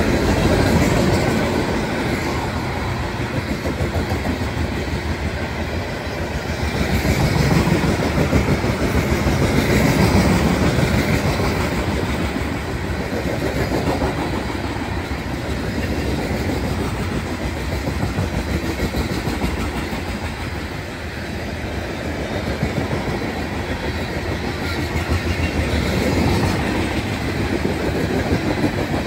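Long string of open-top freight cars rolling past on steel wheels: a steady rumble of wheels on rail with repeated clickety-clack as the wheels cross the rail joints. A heavier low rumble fades in the first moment as the locomotives move off.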